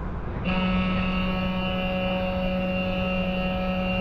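A steady mechanical drone of several held tones, starting suddenly about half a second in.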